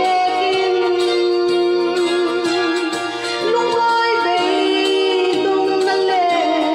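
A woman singing a slow song over instrumental backing, holding long notes with a wavering vibrato.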